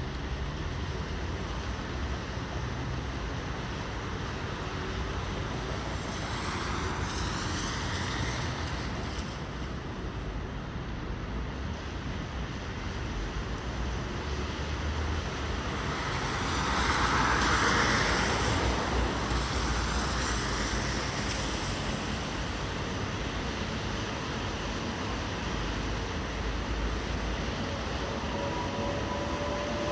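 Wind rumbling on the microphone over steady city traffic noise in a blizzard, with a vehicle passing about seven seconds in and a louder one swelling past around seventeen seconds. Near the end a rising whine starts.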